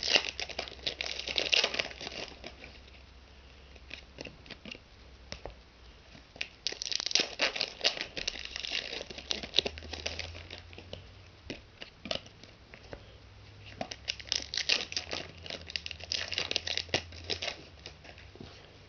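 Foil trading-card pack wrappers crinkling and tearing as packs are torn open by hand, in three long bouts of crackling separated by quieter handling.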